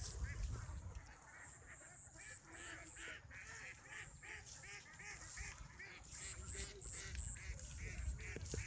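A chorus of short, repeated animal calls, several a second, with a thin high pulsing above and a low rumble beneath.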